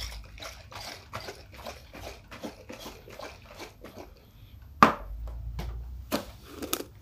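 Liquid sloshing in a lidded jar of water, oil and soap shaken hard by hand, about three shakes a second, mixing the oil into the water. About five seconds in, a sharp knock as the jar is set down, then a couple of clicks near the end.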